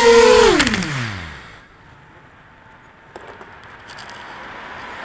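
QAV250 quadcopter's four Multistar 2204 2300Kv brushless motors with 5x3 Gemfan propellers whining steadily with the drone on the ground, then spinning down about half a second in, the pitch falling until they stop about a second and a half in. A few faint clicks follow near the end.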